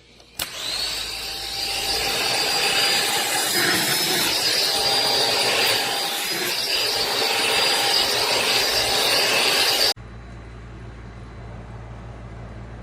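Corded stick vacuum's motor switched on with a click and running with a steady high whine over rushing air. It cuts off abruptly near the end, leaving a low hum.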